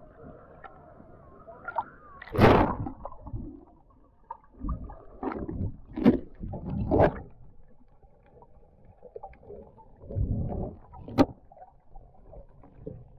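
Muffled splashing and gurgling of water around a waterproof action camera as it is dipped under the surface, in several uneven bursts, the loudest about two seconds in, with a sharp knock near the end.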